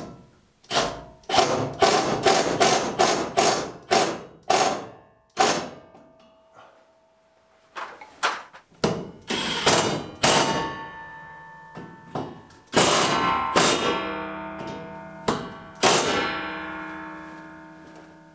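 Sharp knocks on a black steel stove pipe as it is fitted. A quick run of about a dozen taps comes first, then heavier blows in the middle and near the end that leave the pipe ringing with a long metallic tone.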